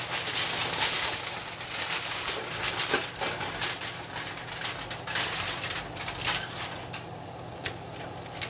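Aluminium foil crinkling and rustling as a hand spreads and presses it over a metal pan. The crackling is busiest in the first few seconds and thins out near the end.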